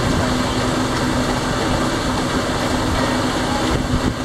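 Electric solar boat under way: wind rushing over the microphone and water noise along the hull, with a steady low hum throughout.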